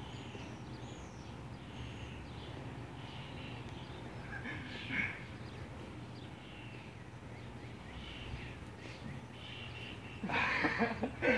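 Outdoor background of small birds chirping now and then over a steady low hum. Near the end, loud voices break in.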